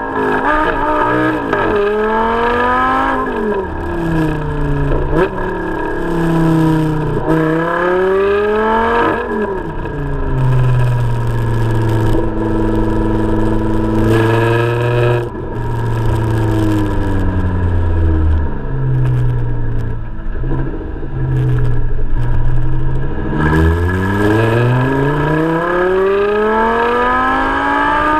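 Audi R8 exhaust heard close to the tailpipe under hard acceleration. The revs climb and drop back through three upshifts in the first nine seconds or so, hold a steady drone for several seconds, then climb again near the end.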